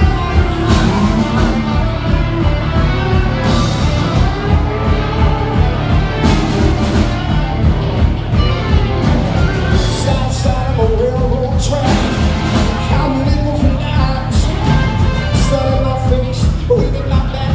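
Live rock band playing loudly, with a steady drum beat under guitars and voice.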